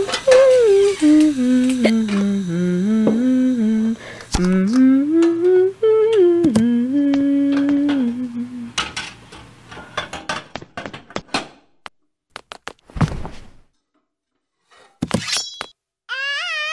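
A voice humming a slow, wandering tune for about eight seconds, then a scatter of light clicks and knocks and a single low thud. Near the end a cat starts meowing.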